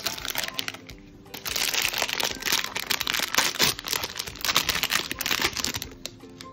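Foil blind-box bag crinkling and rustling as it is torn open and handled, loudest from about a second and a half in until near the end. Soft background music plays underneath.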